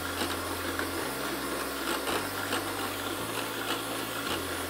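Electric hand mixer running steadily at its lowest speed, its beaters whipping liquid cream in a stainless-steel bowl.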